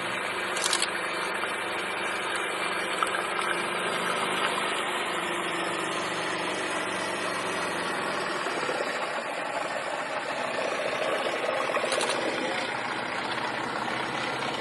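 An engine idling steadily, its sound holding even throughout.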